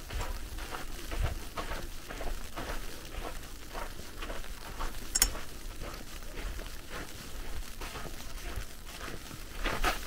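Footsteps crunching through snow in an irregular, crackly series, with a sharp click about five seconds in and a louder crunch near the end.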